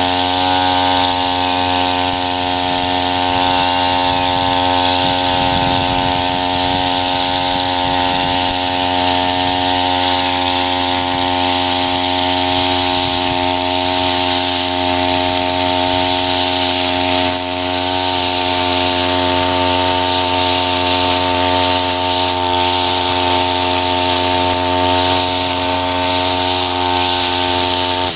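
Tabata 32 cc two-stroke backpack brush cutter running steadily at high speed, with the hiss of its eight-line nylon head cutting through tall, tough grass.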